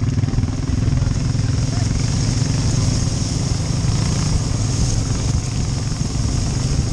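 An engine running steadily at an even speed, a low continuous rumble with a steady hiss over it.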